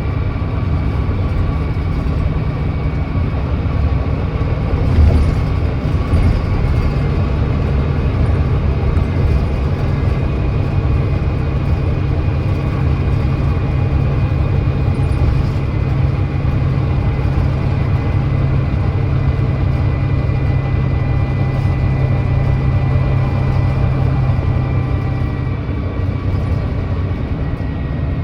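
Volvo D9B 9.3-litre diesel engine of a Volvo B9TL double-decker bus running at a steady pitch while cruising, heard from on board with road noise, its note dropping slightly near the end. A couple of bumps sound about five seconds in.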